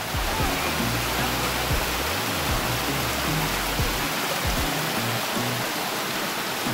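Rushing water of a small waterfall cascading over rocks, a loud steady hiss. Background music plays underneath, its deep bass dropping away about four seconds in.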